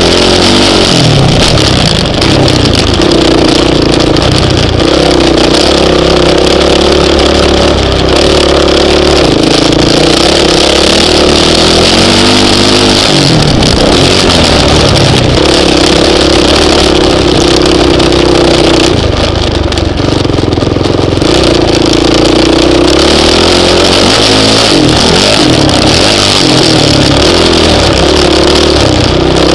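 Honda CRF450X single-cylinder four-stroke dirt bike engine being ridden hard, its note climbing and falling as it revs up and down, with wind rushing over the camera microphone. The engine note falls away briefly a little under halfway through and again about four-fifths in.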